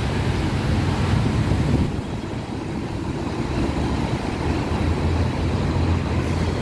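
Passing car traffic: a steady low rumble of engines and tyres that eases off slightly in the middle, then swells near the end as a car drives by close.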